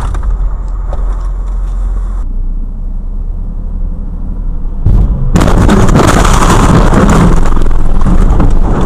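Car-interior road and engine noise, then a sudden loud collision impact about five seconds in, followed by several seconds of loud, distorted crash noise that overloads the microphone.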